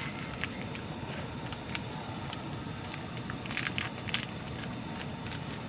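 Steady hiss with scattered sharp crackles from a pot of fish sinigang cooking over the fire, the crackles bunching together a little after halfway.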